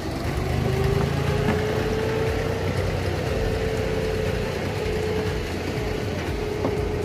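Inboard diesel engine of a wooden abra water taxi idling steadily: a low rumble with a steady hum over it.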